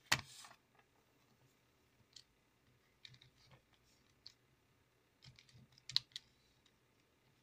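Casio calculator keys being pressed: faint scattered clicks, with a sharper click just after the start and another about six seconds in.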